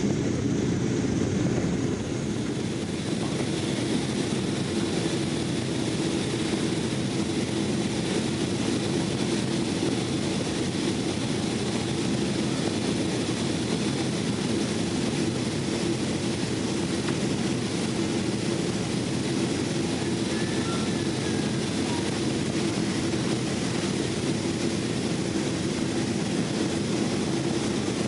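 Steady cabin noise inside a Boeing 777-200ER jet airliner: an even rush of engine and airflow noise with a low hum.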